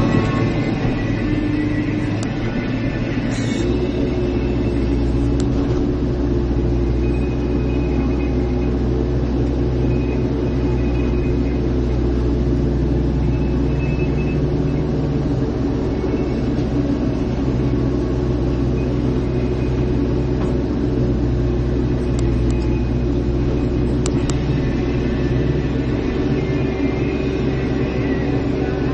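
Caterpillar excavator's diesel engine running with a steady low drone, which deepens and strengthens about three and a half seconds in as the engine takes on more load.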